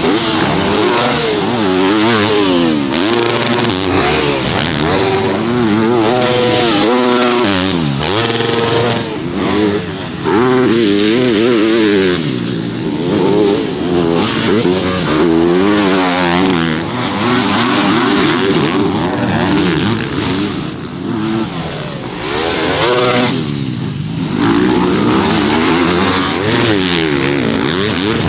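Dirt bike engines revving up and down through the gears as they ride laps of a motocross track. At times two engine notes rise and fall at once.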